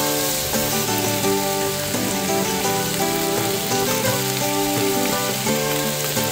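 Sliced pork sizzling as it stir-fries in a frying pan, under background music.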